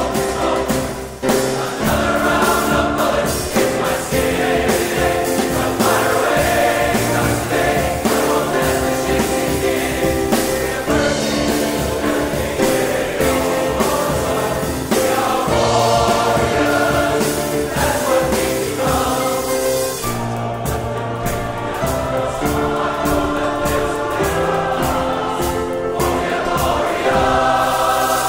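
Men's chorus singing, many voices holding sustained chords in harmony.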